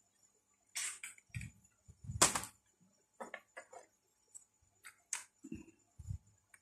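Scattered clicks and knocks of objects being handled on a workbench, about a dozen short irregular taps with one louder knock a little over two seconds in.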